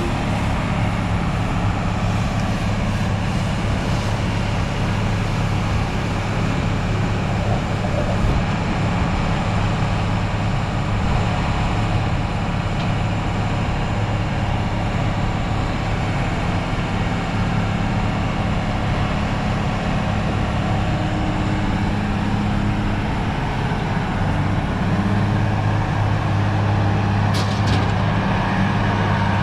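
Diesel engine of a 1997 ABG Titan 273 asphalt paver running steadily with a low, even hum.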